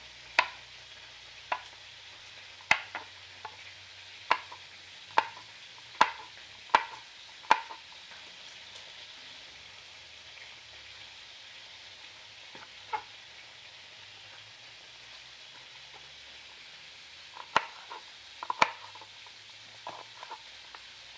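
Kitchen knife chopping green beans on a wooden cutting board: sharp knocks at uneven intervals, a quick run of them in the first few seconds, a long pause, then a few more near the end. Under it, a steady sizzle of chicken browning in hot oil in a clay pot.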